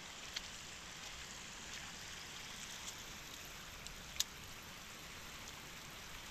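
Steady rushing of a shallow river running over stones, with a few short sharp clicks, the loudest about four seconds in.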